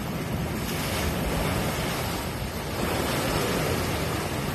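Sea waves surging and breaking against a rock ledge, the wash swelling louder about a second in, with wind buffeting the microphone.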